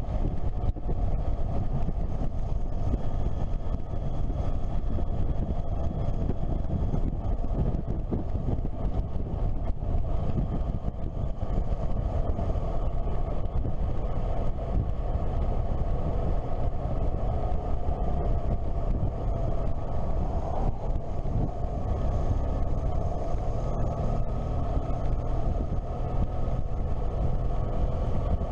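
Motorcycle engine running at steady cruising speed, with wind and road rumble over the microphone. About two-thirds of the way in, its pitch rises briefly.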